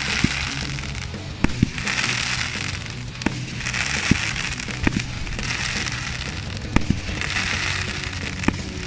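30mm firework cake firing: about ten sharp bangs of shots leaving the tubes and breaking, with hissing, fizzing effects between them, over background music.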